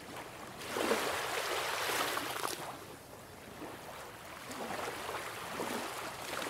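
Sea surf washing on a beach, a rushing wash that swells, dies back about halfway through and builds again near the end.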